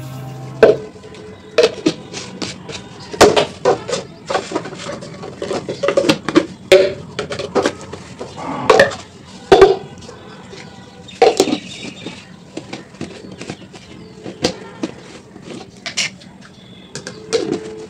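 Dishes and utensils clattering: an irregular run of knocks and clinks, some with a brief ring.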